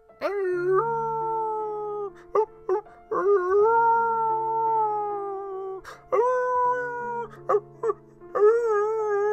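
Mournful dog howling, "ow-woooo": four long wavering howls, with a short "ow, ow" before the second and the fourth, the last howl sliding down in pitch, over slow sad background music.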